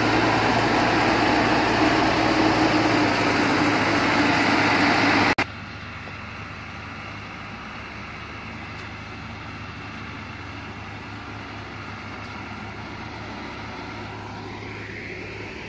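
Diesel engine of a Dongfeng Trường Giang truck loaded with logs, working hard, loud and close. About five seconds in it cuts to the same kind of engine heard fainter and farther off, a steady drone that rises in pitch near the end as the engine revs.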